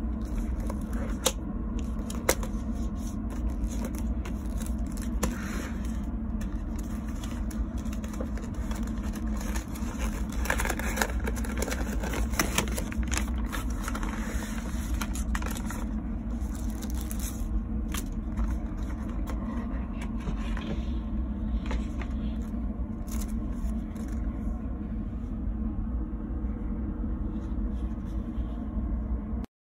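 Steady low rumble of a moving train heard inside the carriage, with paper crackling, scraping and sharp clicks as the string and paper wrapper come off a boxed railway bento and the lid is lifted.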